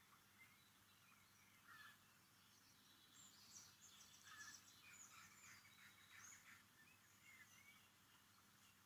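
Faint birdsong: small birds chirping and twittering, sparse at first and busiest in the middle.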